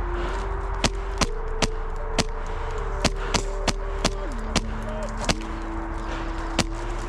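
Airsoft gunfire: about a dozen sharp single shots at irregular spacing, semi-automatic rather than bursts. Under them runs a steady low hum that shifts pitch a few times.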